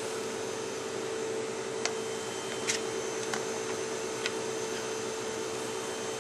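A steady machine hum and hiss, like a fan running, with four sharp metallic clinks of a metal ladle knocking against a stainless steel pot of boiled meat and bones.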